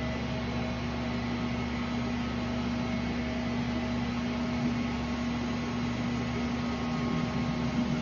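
Tennant T7 ride-on floor scrubber running with scrub engaged: a steady electric motor hum with one strong even tone over a whirring noise.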